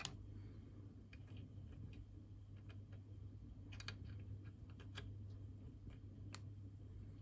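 Sparse small metallic clicks and taps as fingers handle the cylinder block and fittings of a Märklin 16051 model steam engine, with a few clicks in quick succession a little under four seconds in, over a low steady hum.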